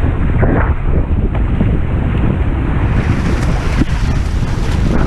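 Steady wind buffeting the microphone over water rushing and splashing past the hulls of a Hobie 16 catamaran under sail.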